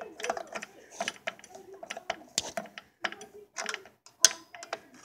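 Irregular metallic clicks and knocks of hand tools and metal parts being worked on a pocket bike's engine while its ignition coil is taken off.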